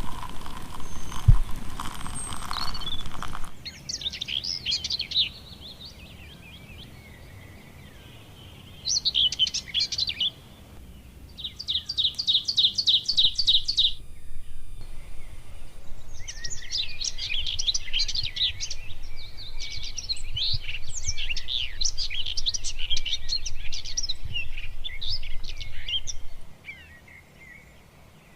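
Wild birds singing and chirping in several bursts, including a fast, even trill, then a long stretch of busy mixed chirping. A single knock sounds about a second in.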